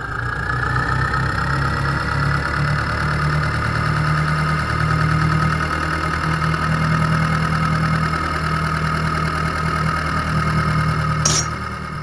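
Tractor engine running steadily with a pulsing low rumble and a high whine on top; a short sharp click about eleven seconds in.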